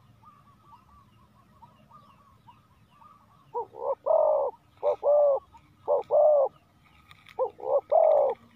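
Spotted dove cooing loudly from about three and a half seconds in, in phrases of a few short coos running into a longer one, repeated; a decoy bird calling to lure wild doves. Faint rapid chirping runs underneath before the cooing starts.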